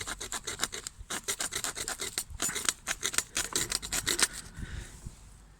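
Quick, rhythmic rasping strokes of a multi-tool's small saw blade working back and forth, stopping about four seconds in.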